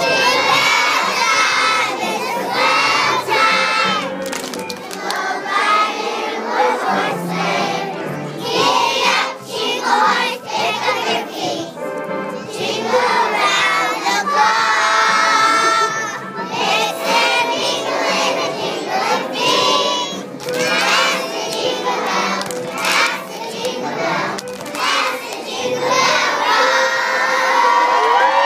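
A group of young children singing loudly, half shouting, over accompanying music.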